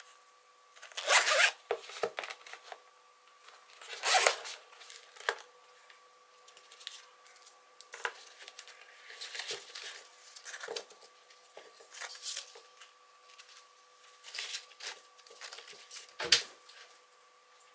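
Zipper of a Bose QuietComfort 35 II hard-shell carrying case being pulled open in two long runs, about a second in and about four seconds in. Then comes scattered rustling and handling as the headphones and the case's fabric flap are moved, with a sharp knock near the end.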